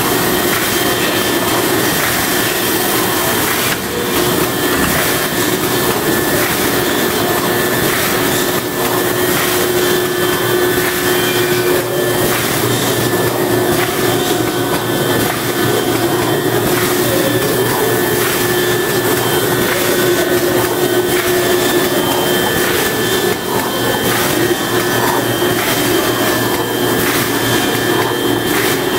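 Plastic bag-making machine with wicketer running: a loud, steady mechanical whir and hiss with a constant hum, and faint clicks now and then as it cycles.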